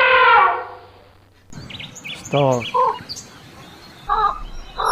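A loud, high, drawn-out animal call falls in pitch and dies away about a second in. After a short pause come scattered bird chirps and a few lower calls.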